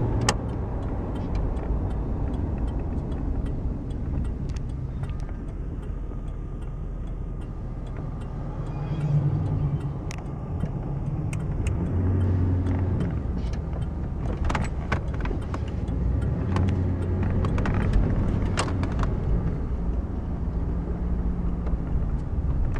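1991 Chevrolet Caprice Classic's 305 V8 running at low road speed, heard from inside the cabin over road noise. Its note rises and falls a few times as the car speeds up, slows and turns. Short light clicks and rattles come through in the second half.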